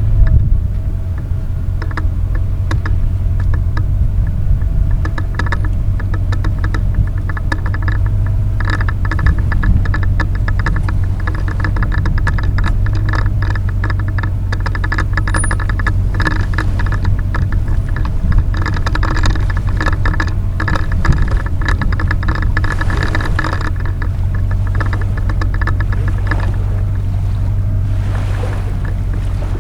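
Small outboard motor running steadily, pushing a small fishing boat across the water, with the hull and fittings rattling.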